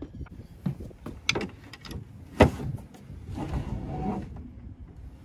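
Knocks and footsteps aboard a fibreglass sailboat, with one sharp thump about two and a half seconds in, then a second or so of sliding scrape at the cabin entrance.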